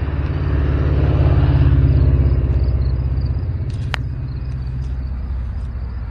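Low engine rumble of a passing motor vehicle, swelling to its loudest about two seconds in and then slowly fading away. A single brief click sounds about four seconds in.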